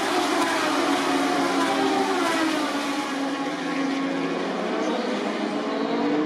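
Moto2 racing motorcycles' Triumph 765 cc three-cylinder engines running at speed, several bikes at once. Their pitch falls over the first few seconds as they go by and brake, then rises again near the end as a bike accelerates.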